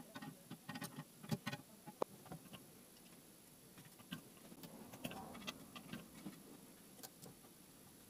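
Hands handling plastic air tubing and push-in pneumatic fittings on a metal frame: faint, irregular clicks and light taps, the loudest a little past one second in and at two seconds.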